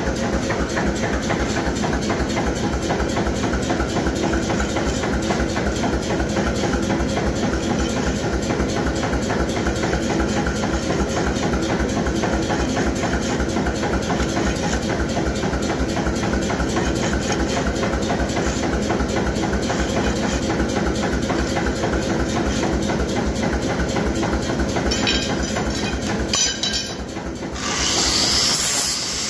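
Steady hiss of a running forge. Near the end an angle grinder starts up with a loud high whine.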